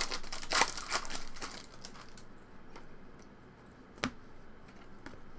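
Foil wrapper of a Topps Stadium Club Chrome trading-card pack being torn open and crinkled, with crackling through the first second and a half, then a single sharp click about four seconds in.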